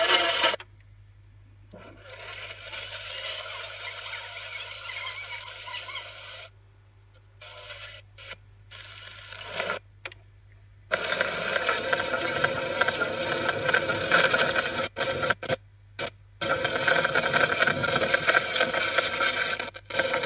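Noisy, scraping audio played back from a Betacam SP tape on a Sony BVW-35 recorder. It cuts out abruptly several times and comes back just as suddenly, over a steady low hum.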